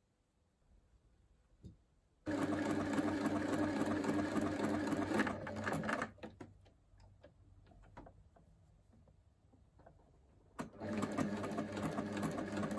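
Compact electric sewing machine stitching in two runs: the first starts about two seconds in and lasts about four seconds, and the second starts near the end. Between the runs there are only a few light clicks and taps.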